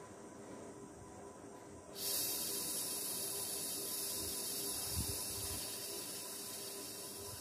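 A man breathing out slowly through pursed lips in a yoga breathing exercise. It makes a steady, high hiss that starts suddenly about two seconds in and carries on, slowly fading.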